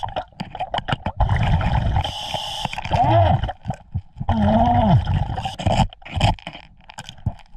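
Underwater, a metal pick clicks, taps and scrapes against bedrock as it is worked into a crevice. The hiss and gurgle of a scuba regulator's breathing is heard between the strokes.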